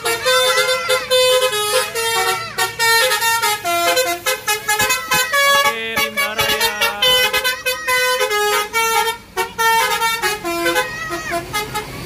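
A bus's basuri musical air horn playing a fast melody of short notes that step up and down in pitch.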